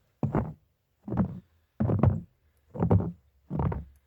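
Boot footsteps at a steady walking pace, five heavy thuds a little under a second apart.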